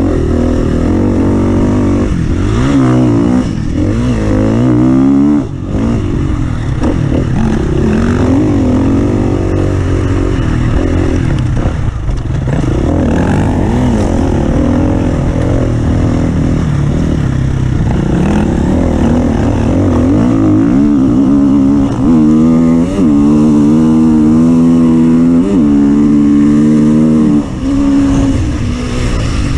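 Off-road vehicle engine running hard, revving up and easing off again and again, then held at high revs for several seconds before dropping off near the end.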